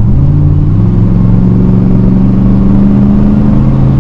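The 1993 Ford SVT Lightning's 5.8-liter Windsor V8 rumbling as the truck drives along. Its pitch rises a little in the first second, then holds steady.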